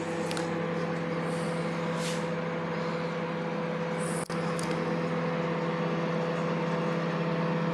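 800-watt microwave oven running on full power, a steady electrical hum with its fan, while it heats the popcorn kernels. The hum drops out for a moment about four seconds in.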